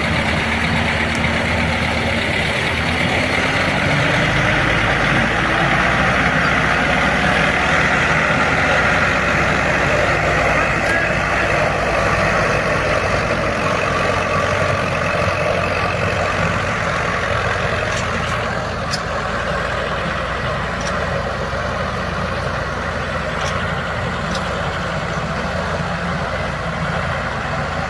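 Diesel engines of a Lovol 745 and a T-40 tractor running steadily, revving up a few seconds in as they work to get the Lovol moving through the soft field.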